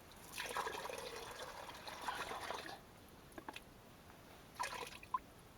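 Water pouring into a bucket for about two and a half seconds, then a few short knocks.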